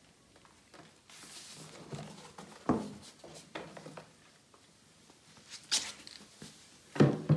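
Irregular knocks and clatters, with a brief rustle about a second in, from hands working the quad bike's rubber fuel hoses, Y-connector and fuel cock; the loudest knock comes near the end.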